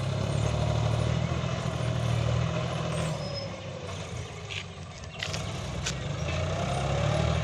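Heavy diesel machinery engine running hard, with a whine that sinks and then climbs again. It eases off about four seconds in, a few short clicks or knocks follow, and then it builds back up near the end.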